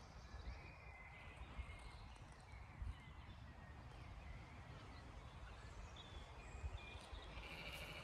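Faint birdsong: several small birds chirping and trilling on and off, over a low rumble of wind on the microphone.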